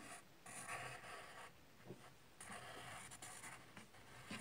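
A pencil drawing on paper: several short stretches of faint scratching strokes as a moustache is sketched.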